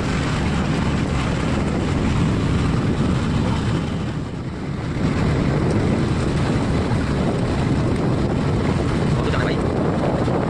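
Passenger tour boat's engine running steadily under way, with wind rushing over the microphone; the level dips briefly about four seconds in.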